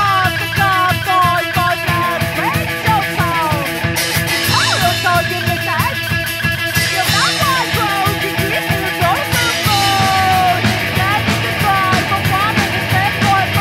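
Punk/new-wave rock band playing live: semi-hollow electric guitar, drum kit and a singer's voice over a fast, driving beat.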